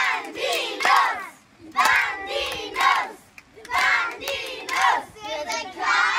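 A group of children and adult coaches shouting a rhythmic team cheer together, one loud call about every second.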